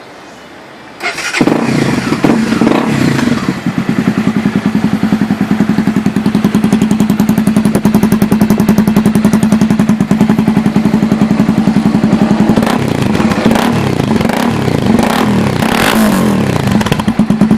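Honda XRE 300's single-cylinder engine starting about a second in, through a Roncar Coyote two-way aftermarket exhaust, then idling with a steady pulsing beat. It is revved briefly several times near the end.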